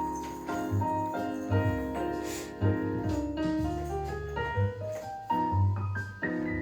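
Background jazz music led by piano, with a line of low bass notes.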